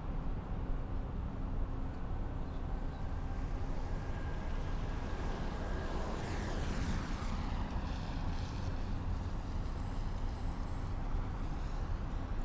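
A road vehicle passes close by on the street: its tyre and engine noise swells about six seconds in and fades away, over a steady low rumble of city traffic.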